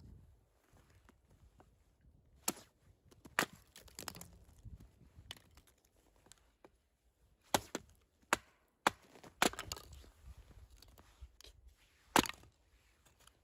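Wood being chopped: several sharp, single chopping strikes at irregular intervals, with pauses of a second or more between some of them.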